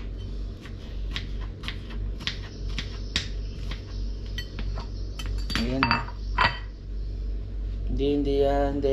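Kitchen knife cutting through tomatoes and tapping on a cutting board, sharp clicks about three a second that stop about five seconds in, over a steady low hum.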